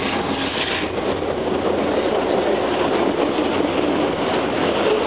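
Freight train passing close by: a steady noise of its cars' wheels rolling on the rails, growing a little louder after the first second.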